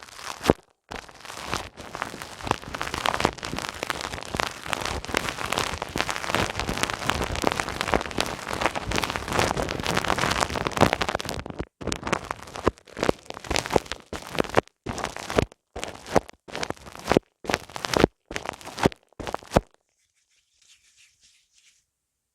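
ASMR ear massage: hands rubbing and pressing on the ears of a binaural microphone, a close, dense crackling rub for about ten seconds, then a string of short separate strokes that stops a few seconds before the end.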